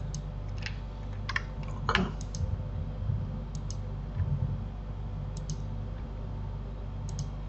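Scattered clicks of a computer keyboard and mouse, several in quick pairs, over a steady low hum.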